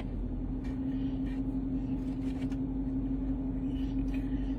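Steady mechanical hum with a low rumble, in the manner of a running vehicle, with a few faint clicks.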